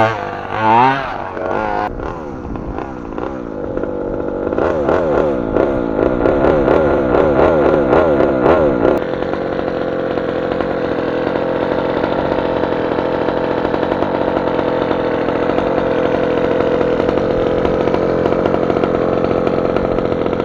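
26cc two-stroke engine of a 1/5-scale petrol RC car, revving up and down in quick wavering blips. About nine seconds in it settles to a steady, even run.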